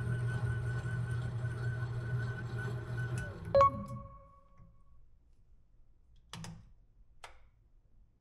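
Benchtop lathe running during a thread-cutting pass, a steady motor hum with a low drone. About three and a half seconds in, a sharp metal clank rings briefly as the lathe is stopped. The hum dies away as the chuck coasts to a halt on its own inertia, leaving near quiet with a couple of faint clicks.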